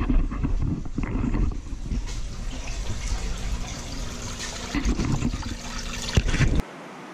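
Water sloshing and trickling in a garage minnow tank as a dip net scoops bait minnows out, with scattered knocks. About six and a half seconds in it cuts to the quieter, steady rush of a stream.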